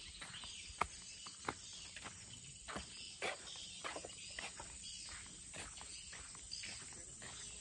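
Footsteps on a sandy dirt path: irregular crunching steps, roughly two a second, the sharpest about a second in, over a faint steady hiss.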